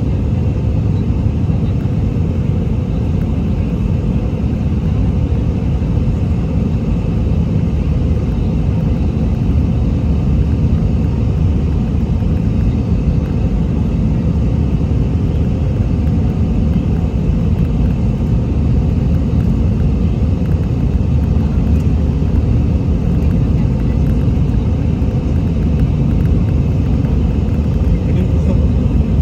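Steady low rumble inside the cabin of an Airbus A319 airliner: jet engine and airflow noise, unchanging throughout.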